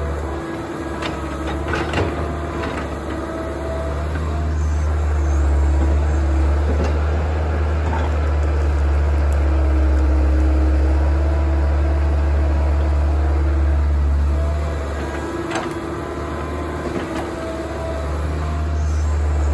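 Kobelco crawler excavator's diesel engine running under working load, its low hum dipping and swelling as the boom and bucket move, with a whine that comes and goes. A few sharp clanks sound about two seconds in and again about fifteen seconds in.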